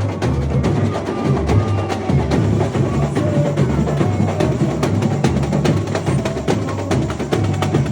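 Samba school drum section playing a samba beat: deep bass drums keeping a steady low pulse under dense, fast, sharp clicking and rattling percussion.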